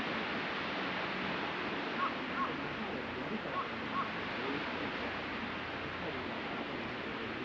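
Steady wash of sea surf on the beach, with four short high chirps from a bird in two pairs, about two and three and a half seconds in.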